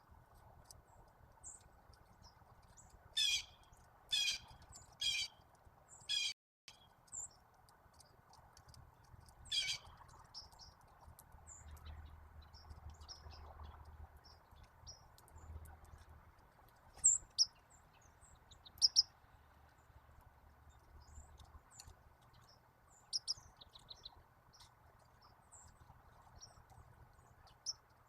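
Backyard songbirds at a feeder calling: a run of several harsh, buzzy calls in the first third, and scattered short, high chip notes throughout, a few louder near the middle.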